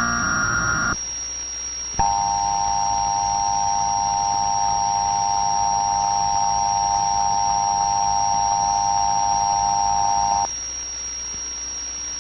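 Emergency Alert System tones: the last of the SAME digital header bursts, a one-second burst of warbling data noise. After a second's pause comes the EAS attention signal, a steady two-tone alert (853 and 960 Hz) held about eight and a half seconds that cuts off sharply.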